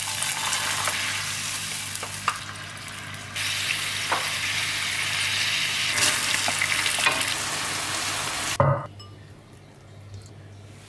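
Sauce and garlic sizzling in a hot frying pan, the sizzle swelling a few seconds in, with light knocks of a wooden spoon. It cuts off after a sharp knock near the end, leaving faint clicks of tongs serving the stir-fry into a bowl.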